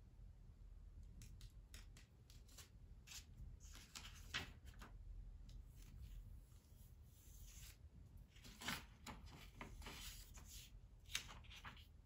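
Paper book pages rustling and crinkling as hands press and smooth them flat against a wall: faint, short rustles, with three louder ones about 4, 9 and 11 seconds in.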